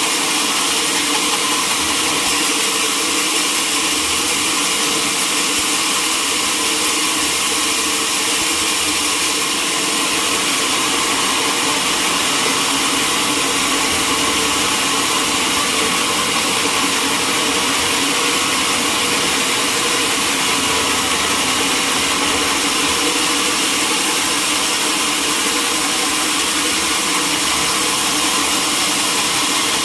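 Sawmill saw running steadily: an even machine noise with several held tones under a strong high hiss.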